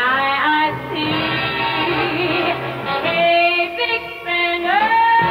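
Big-band orchestra playing a brassy show tune, with a woman singing in places; a long held high note begins near the end.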